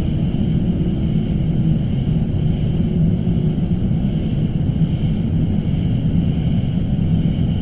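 Suspense ambience drone: a steady, dense low rumble with faint sustained high tones hanging above it, unchanging throughout.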